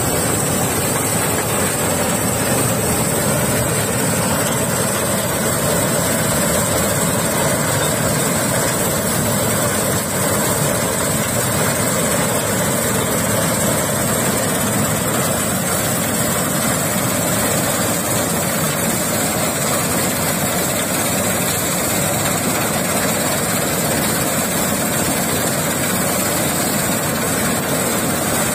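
Malkit 997 combine harvester running steadily as its header cuts through dry okra plants: a constant engine and machinery noise with a steady high hiss over it.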